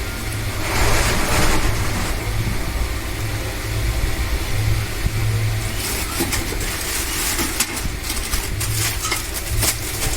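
Electric table fan running at high speed: a steady motor hum with its airflow buffeting the microphone in an uneven low rumble. There is a gust of hiss about a second in and scattered sharp clicks in the second half.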